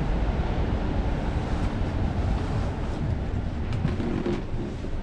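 Steady low rumble of a busy exhibition hall's background noise, with faint distant voices about four seconds in.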